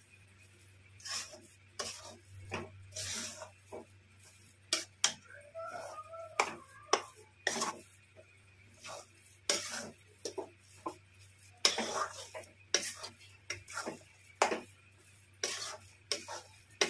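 Metal spatula scraping and knocking against a metal kadhai as dry, crumbly khoya-and-semolina stuffing is stirred, in irregular strokes about once or twice a second.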